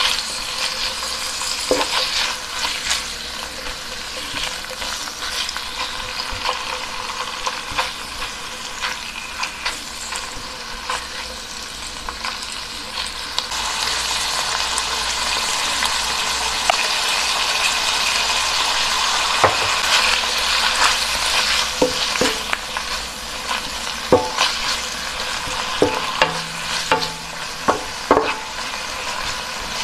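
Diced beef and sliced onion sizzling in a nonstick pan while being stirred with a wooden spatula. The sizzle grows louder about halfway through, and sharp taps and scrapes of the spatula against the pan come more often near the end.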